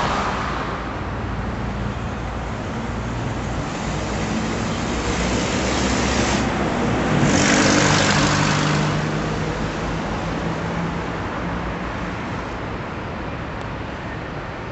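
Ford Transit van's engine running, growing louder about halfway through as it comes close by, then easing off again.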